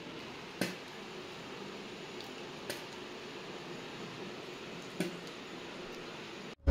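Small round plastic compact mirror being handled, opened and shut, giving three sharp clicks about two seconds apart over a steady low room hum.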